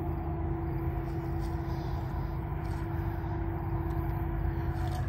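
Norfolk Southern freight train's diesel locomotive moving slowly up the track, its engine a steady low rumble with a steady hum.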